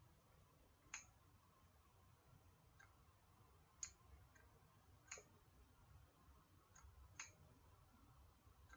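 Near silence broken by sharp, short clicks at uneven spacing, four louder ones and several fainter ones in between.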